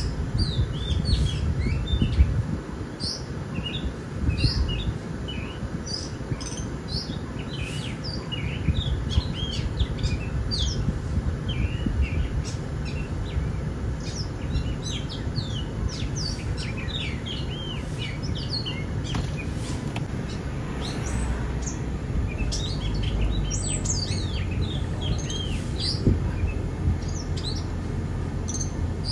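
Small birds chirping and calling, many short tweets one after another, over a steady low rumble.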